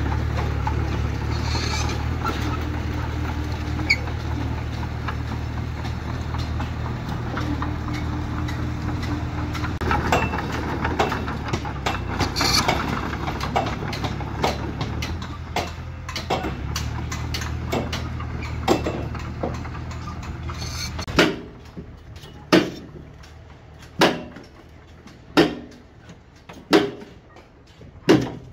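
Small Komatsu crawler bulldozer's diesel engine running steadily for most of the time. Near the end it gives way to a worker ramming backfill soil with a wooden pole: six sharp knocks about a second and a half apart.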